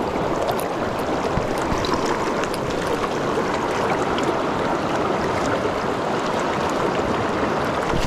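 Fast, shallow mountain river rushing over rocks through a riffle: a steady, even rush of water.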